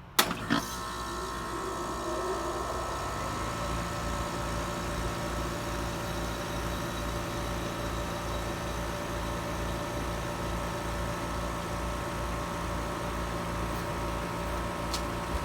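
Trane XR14 heat pump starting in heat mode: a sharp click and clunk, then the unit spins up over the first couple of seconds and settles into a steady running hum with several steady tones and an even low pulsing.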